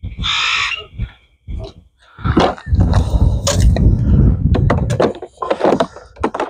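Wind rumbling on the microphone in gusts, with a short hiss at the very start and scattered knocks and scrapes from a garden hose and sprayer nozzle being gathered up beside a plastic tub.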